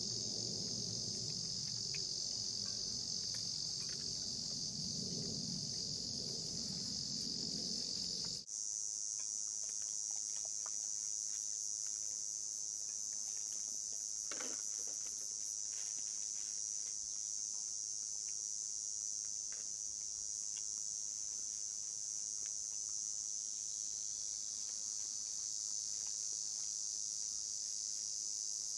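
Steady, high-pitched chorus of insects shrilling without a break. For the first eight seconds or so a low rumble runs under it, then cuts off abruptly; a few faint clicks sound later on.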